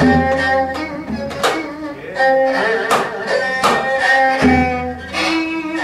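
Korean traditional ensemble playing: gayageum zithers plucking melody over sustained string tones, with janggu hourglass-drum strokes keeping a steady beat about every three-quarters of a second and deep drum strokes at the start and about four and a half seconds in.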